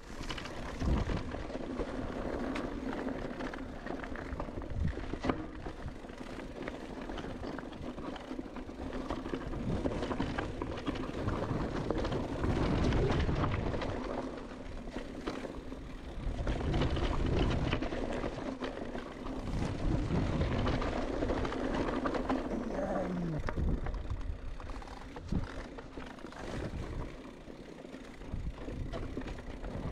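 Electric mountain bike ridden along a dirt trail: tyre roll and rattles of the bike, wind buffeting the action-camera microphone, and a steady hum from the Bosch mid-drive motor that glides down in pitch and fades about three-quarters of the way through.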